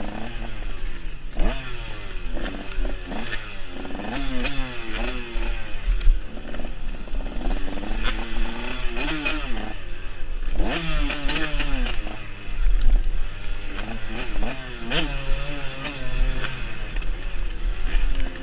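Dirt bike engine being ridden hard over rough trail, its revs rising and falling over and over as the throttle opens and closes. Sharp clattering knocks from the bike over the rough ground come through often.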